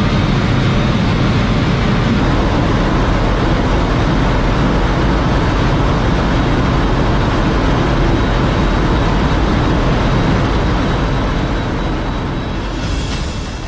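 Aspark Owl SP600 electric hypercar driving at high speed: steady road and wind noise with a faint high whine. It fades out near the end.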